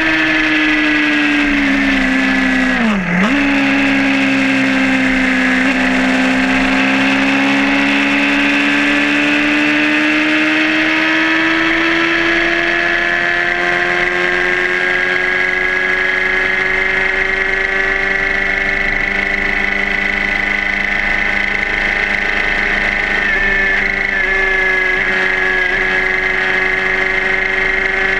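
Suzuki GSR600 motorcycle's inline-four engine running at speed with a high, steady note. The pitch falls over the first few seconds, dips sharply for a moment about three seconds in, then climbs slowly as the bike gathers speed.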